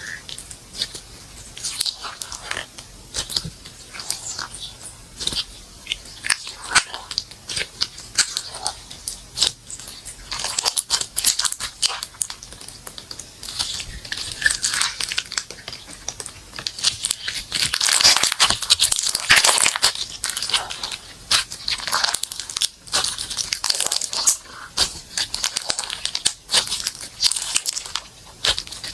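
Slime being squeezed and stretched by hand: a run of sticky clicks, pops and crackles, busiest and loudest about two-thirds of the way through.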